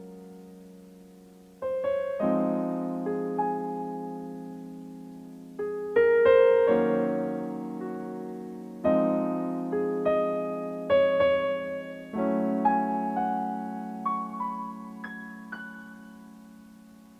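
Background music: slow solo piano, chords struck every second or two and left to ring and fade, the last one dying away near the end.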